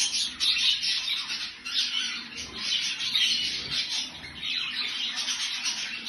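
Budgerigars chattering: a continuous stream of short chirps and squawks.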